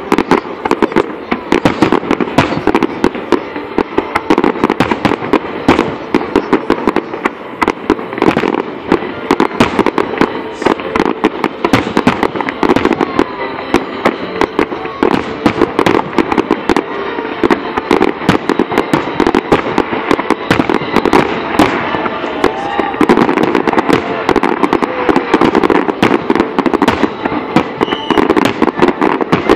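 Fireworks display: aerial shells bursting in a dense, unbroken barrage of bangs and crackles, several each second.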